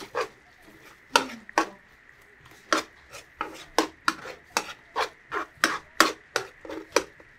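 Knife chopping food on a wooden cutting board: a run of sharp knocks, about two a second, starting about a second in.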